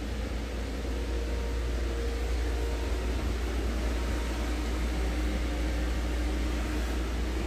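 Electric blower of an inflatable bounce house running continuously to keep it inflated: an even rushing noise over a low hum, with a faint steady tone.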